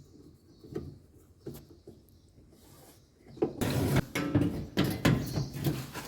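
A few light clicks, then from about halfway a loud run of clattering, knocking and scraping as the dryer's metal cover panel is handled and fitted.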